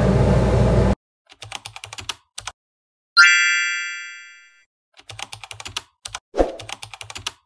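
Outro sound effects over digital silence: a run of keyboard-typing clicks, a single bell ding that rings out for about a second and a half, then more typing clicks with a soft thump among them. Before them, about a second in, kitchen background noise cuts off abruptly.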